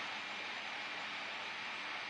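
Steady faint hiss of background room noise, with no distinct sounds.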